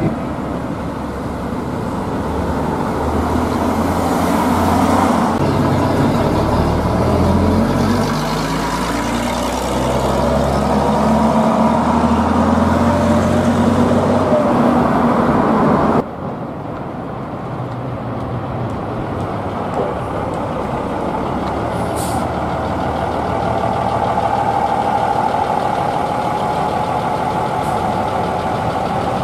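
Diesel engine of a heritage double-decker bus working as it pulls along the street, its pitch stepping up and down with gear changes, with other traffic passing. About halfway through the sound cuts abruptly to a single-decker bus's diesel engine running steadily, with a brief hiss about two-thirds of the way through.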